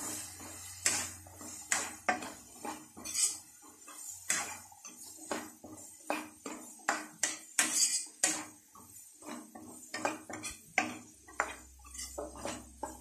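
A spatula scraping and knocking against a non-stick pan as diced radish is stirred and sautéed with spice powders, with a short stroke about twice a second.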